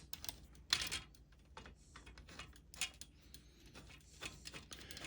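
Irregular light clicks and taps of small hardware being handled: a screw with its washer being pushed through and started into the planter's frame, with a couple of louder knocks among them.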